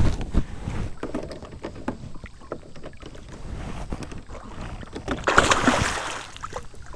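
Scattered knocks and rattles against the kayak, then a large blue catfish splashing hard at the surface beside the kayak about five seconds in, the loudest sound, lasting about a second.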